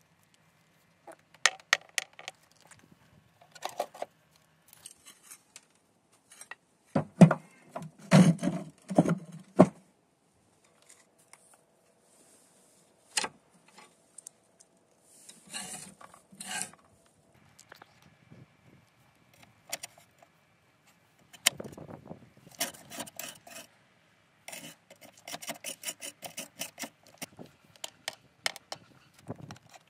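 Rusty steel nuts, bolts and open-end wrenches clinking and knocking against each other and the metal plate as a rusty machine is dismantled by hand, with a screwdriver scraping rust and dirt out of a bolt hole. Irregular clinks and scrapes, loudest in a cluster of knocks about seven to ten seconds in.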